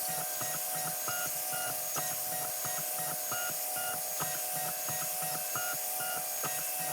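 XVICO X3S 3D printer running a print: its stepper motors whine in short tones that jump in pitch every fraction of a second as the print head changes direction, over a steady hum and hiss.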